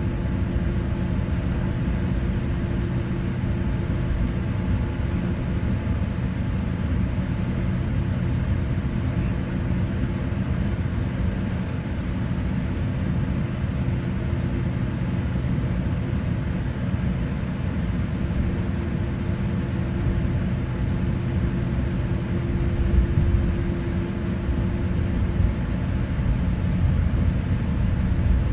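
Cabin noise of a Boeing 787-8 taxiing after landing: a steady low drone of the engines at idle and the wheels rolling, with a couple of brief bumps near the end.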